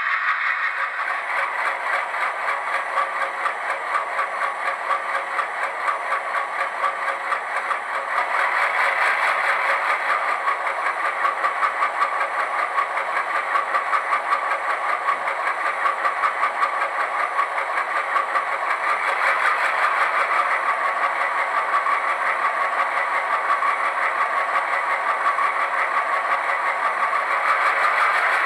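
ALCO C-628 diesel engine sound from a LokSound Select decoder, played through a Scale Sound Systems high bass speaker in an HO-scale model locomotive. The engine runs with a steady pulsing beat and gets louder about eight seconds in and again near twenty seconds.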